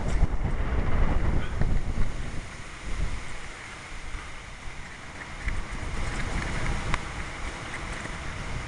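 Strong, gusty storm wind buffeting the microphone, with water sloshing as someone wades through knee-deep floodwater. The gusts are loudest at the start, ease off in the middle and build again near the end.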